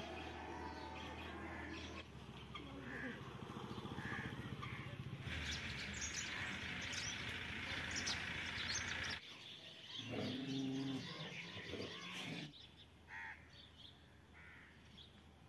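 Birds chirping and calling in rural morning ambience, with a dense stretch of chatter in the middle. A low steady hum runs under the first half, and a short low call sounds about ten seconds in.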